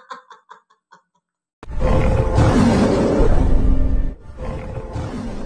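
A big cat's roar laid over dramatic music, starting suddenly about a second and a half in. A loud first stretch is followed by a second, quieter one. Before it, a man's laughter trails off.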